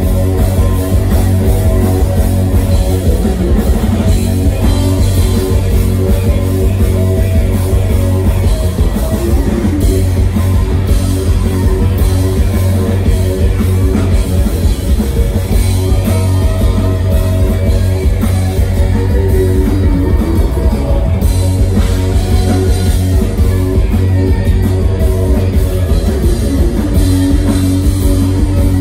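Live psychedelic rock band playing loudly, with electric guitars, keyboards, bass and drum kit over a heavy bass line and steady drum beat.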